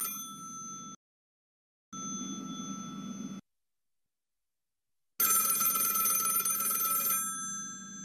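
Telephone bell ringing sound effect, heard in three stretches that start and stop abruptly: about a second at the start, a second and a half from about two seconds in, and a longer, louder ring from about five seconds in that tails off toward the end.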